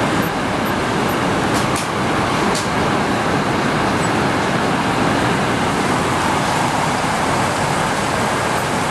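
Heavy downpour falling steadily and hard, a loud even hiss of rain, with water running off overflowing gutters.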